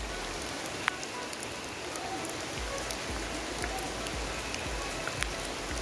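Steady rain falling, an even hiss of rain on surfaces with a few sharp drop ticks.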